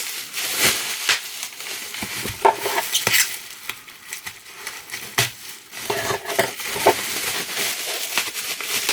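Plastic packaging around a framed print crinkling and rustling as it is handled and pulled open, with irregular crackles and sharper clicks.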